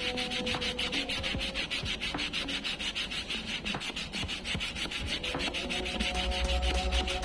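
Coarse grit-80 silicon carbide sandpaper on a hand sanding block, rubbed rapidly back and forth across a block of wood in an even, scratchy rhythm.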